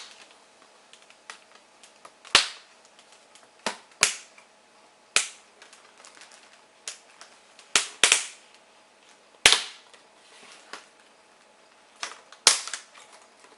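Plastic snap-in clips of a Dell Inspiron N7010 laptop's screen bezel popping loose one after another as the bezel is pried off by hand: a series of sharp snaps, about a dozen, a second or two apart.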